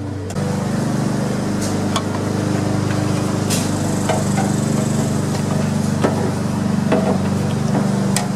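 Scattered metal clinks and light knocks as the blower housing with its recoil starter is handled and lifted off a Tecumseh lawn mower engine, over a steady low drone from another running machine.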